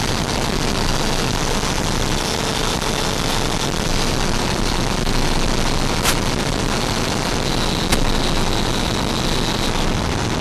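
Steady rushing of an RC jet's electric ducted fan and the airflow over it, heard through the onboard FPV camera's microphone on final approach and landing. Two sharp clicks come about six and eight seconds in.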